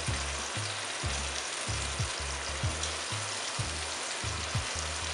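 Curry-marinated goat meat sizzling as pieces are dropped into hot oil in a pot on medium-high heat, a steady frying hiss. A low beat of background music runs underneath, about two beats a second.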